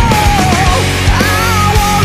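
Loud heavy rock music with a driving drum beat and a melodic lead line that slides up and down in pitch.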